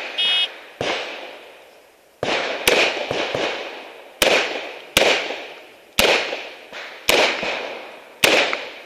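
A shot timer's start beep, then a revolver fired in a quick string of shots, roughly one every half second to a second, each fading out quickly. The last shot ends a string timed at 8.11 seconds.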